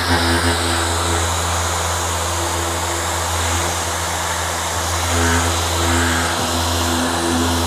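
Dual-action (DA) sander running steadily with 600-grit paper, sanding around the edge of a car body repair: a steady hum over an even hiss.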